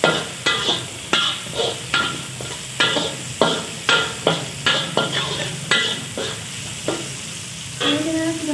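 Metal spatula scraping and knocking against a wok about twice a second while chopped shallots, garlic and chilli sizzle in hot oil, the strokes stopping about a second before the end.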